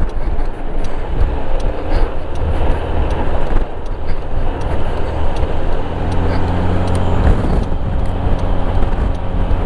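Motorcycle engine running steadily while riding, with wind rushing over the microphone. The engine's low steady tones come through more clearly from about six seconds in.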